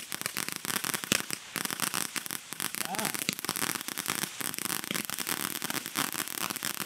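Fireworks crackling: a dense, continuous run of small sharp pops and crackles overlapping one another.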